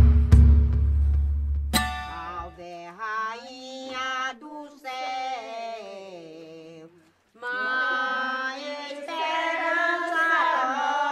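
A deep bass drone with a couple of sharp hits gives way, about two seconds in, to a voice singing a slow, wavering devotional folk melody. The singing breaks off briefly a little past the middle, then comes back fuller and louder.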